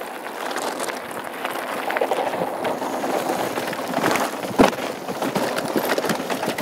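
2013 Norco Truax hardtail mountain bike rolling fast downhill over loose gravel and dirt: tyres crunching with a constant rattle of the bike over stones, and one sharp knock about four and a half seconds in, the loudest moment.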